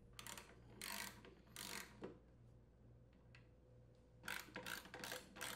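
Ratchet socket wrench clicking faintly in short bursts as a wheel bolt is tightened: a few strokes in the first two seconds, then a quicker run of clicks near the end.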